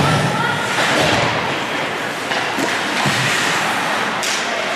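Ice hockey play: a steady rush of skate blades on the ice with several sharp knocks of sticks and puck, the sharpest about four seconds in.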